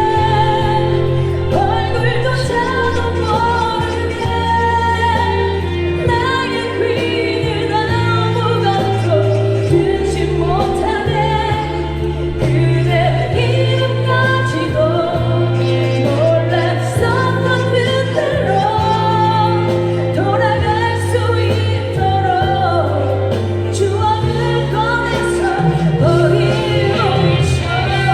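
A female singer sings a pop song live over a pre-recorded backing track, with a steady bass line that moves from chord to chord.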